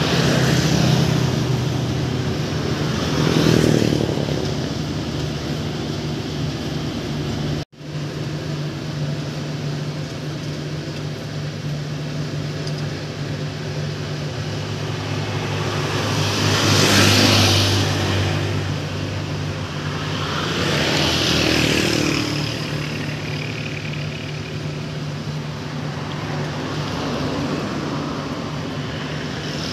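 Rice harvesting machine engine running steadily at a constant pitch, swelling louder three times as it works nearby.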